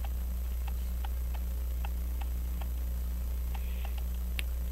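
Faint, fairly regular ticking, about three or four ticks a second, over a steady low hum; one slightly sharper click near the end.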